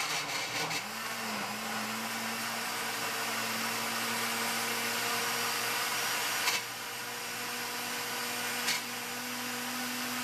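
Countertop electric blender running steadily, puréeing a watery seasoning of onion, herbs and lemon juice, with a steady motor hum. Two brief sharp knocks partway through.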